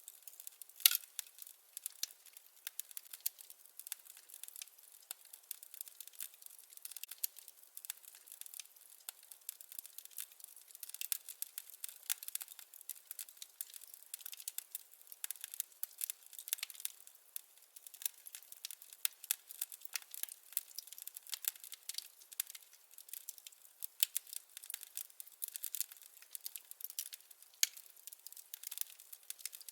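Firewood burning in a fireplace, crackling with frequent sharp pops and snaps at irregular intervals.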